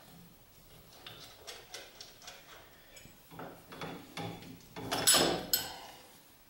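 Wrench turning a 17 mm nylock nut off the end of a milling machine's X-axis leadscrew: a run of light metallic ticks and clicks, then louder clinks of steel on steel about five seconds in.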